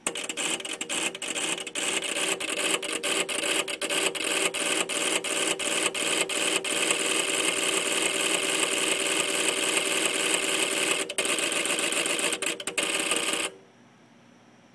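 LDG AT-1000Pro automatic antenna tuner's relays chattering in a rapid, irregular run of clicks over a steady hiss as it searches for a match on 160 metres. The clicking stops abruptly about thirteen and a half seconds in, when the tune cycle ends.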